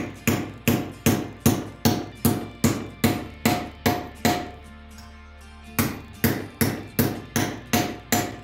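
Ball peen hammer tapping a small steel spoon blank held on a steel swage block in a bench vise, light repeated metal-on-metal blows at about three a second, each with a short ring. The hammering stops for about a second and a half midway, then resumes at the same pace.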